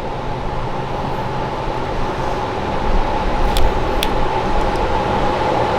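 A steady mechanical hum with a held tone, broken by two sharp clicks a little past the middle.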